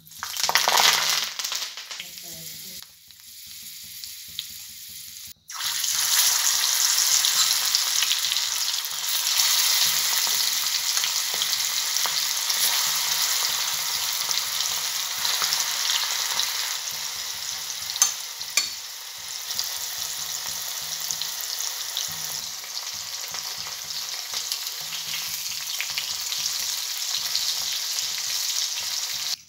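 Curry leaves hitting hot oil in an iron kadai, a loud burst of crackling and sizzling that quickly dies down. After a cut, chilli-marinated chicken pieces deep-frying in the oil with a steady, dense sizzle and one sharp pop past the middle.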